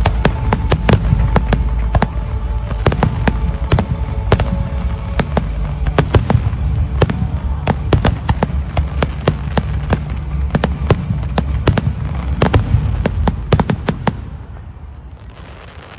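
Aerial fireworks bursting in rapid succession: many sharp cracks over a deep, continuous rumble. The barrage thins out and fades about two seconds before the end.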